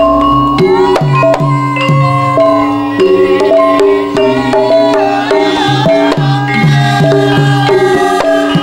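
Javanese gamelan music accompanying a Lengger dance: a kendang hand drum beats a steady pattern under repeating melodic notes from the tuned metal instruments.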